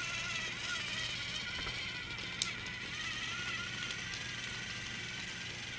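Motorized Thomas the Tank Engine toy train running on plastic track: a steady whirring of its small motor and gears with a wavering whine, and a single sharp click about two and a half seconds in.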